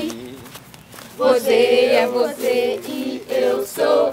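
A group of young voices singing together in unison, in short chant-like phrases. There is a brief lull about half a second in, then a run of short sung syllables.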